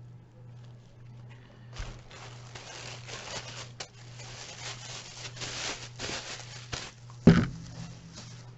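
Packaging being rustled and torn open by hand as an item is unwrapped, a crinkly rustle lasting several seconds, followed by a single loud thump near the end. A steady low hum runs underneath.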